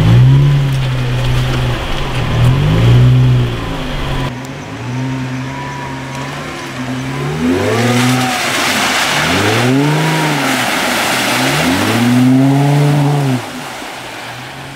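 Jeep Wrangler's engine revving up and falling back again and again, roughly every second and a half, as it works through thick mud. From about halfway there is a steady hiss of tyres churning and throwing mud, and the revving eases off near the end.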